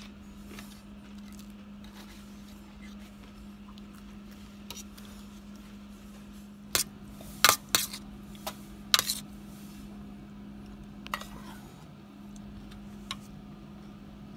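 Metal cutlery clinking and scraping against a stainless steel thali tray: a quick cluster of sharp clinks about halfway through, with a few single clinks before and after.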